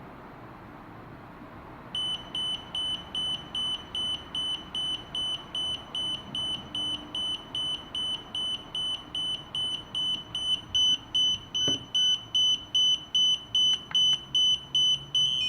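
DJI Spark remote controller beeping without pause: a rapid, high-pitched beep repeating about two and a half times a second. It starts about two seconds in and grows louder after about ten seconds. The incessant beeping is the controller's fault warning; it would neither pair nor calibrate, and the controller was found to be faulty.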